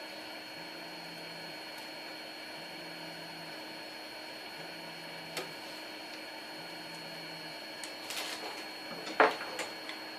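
Clicks and knocks of computer parts being handled: a single click about five seconds in, then a cluster of clicks near the end with one sharp, louder knock. A steady hiss and a faint low tone pulsing about every two seconds run beneath.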